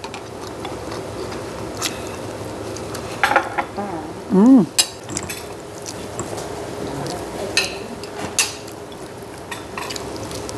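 Close-up eating sounds: wet chewing and lip smacks, with scattered sharp clicks of a fork against dishes. A short hummed 'mm' from the eater about four and a half seconds in is the loudest moment.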